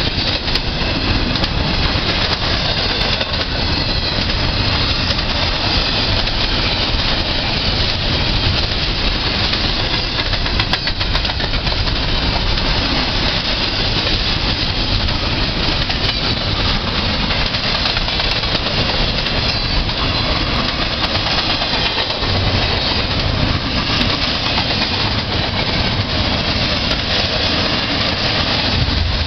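Double-stack intermodal container train passing: a steady, loud noise of steel wheels on rail and the rattle of the well cars going by.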